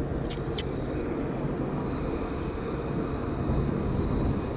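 Steady low rumble of street traffic, with a tram running close by, and a few light clicks about half a second in.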